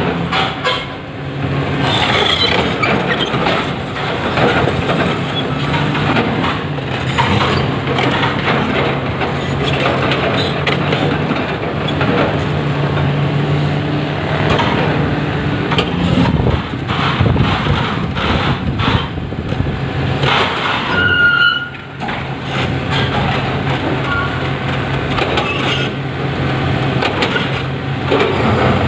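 Komatsu hydraulic excavator's diesel engine running steadily under load as it works the boom and bucket, with scattered knocks and scrapes of the steel bucket against stone. The engine note swells about halfway through and dips briefly twice.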